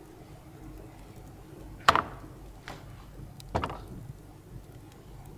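Slow footsteps on a hard floor: three steps under a second apart, the first the loudest, each with a short echo from the room.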